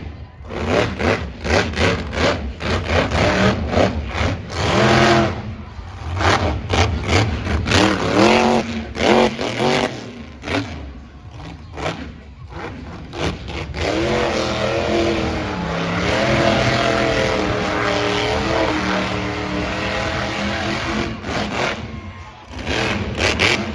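Monster truck engine revving hard while the truck spins donuts in the dirt: choppy, uneven bursts of throttle in the first half, then a long run at high revs, its pitch dipping and rising, through the second half.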